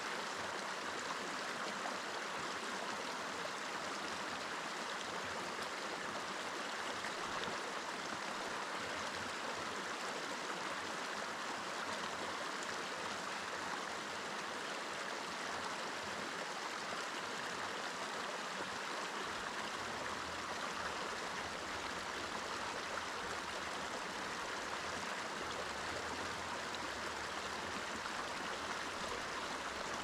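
Mountain river flowing: a steady, even rush of water.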